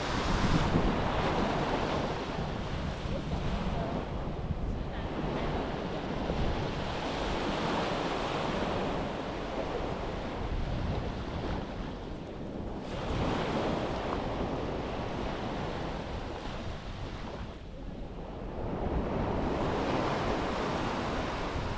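Ocean surf breaking on a beach, the wash swelling and fading about every five to six seconds, with wind buffeting the microphone.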